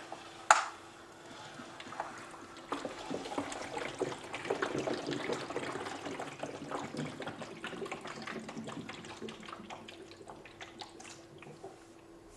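Blue water trickling and sloshing inside the clear plastic compartments of a rotating Pythagorean theorem demonstration disc as it drains from the hypotenuse square into the two leg squares. There is a sharp knock about half a second in. The trickling starts about three seconds in, is busiest a second or two later, and dies away near the end.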